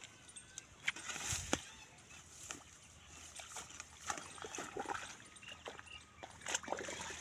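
Hands working wet mud and water at the bank of a small earth irrigation channel: irregular wet slaps, squelches and small splashes, with the loudest ones about a second and a half in and near the end.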